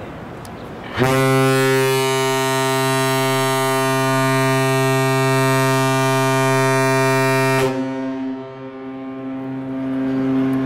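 A ship's horn sounds one long, steady blast of about six and a half seconds that starts and cuts off sharply, with a fainter tone lingering after it.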